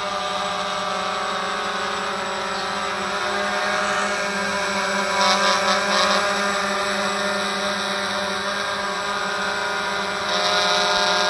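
Walkera QR X350 quadcopter's four electric motors and propellers whining steadily as it hovers close by. The hum swells briefly about five seconds in and grows louder near the end as the drone climbs overhead.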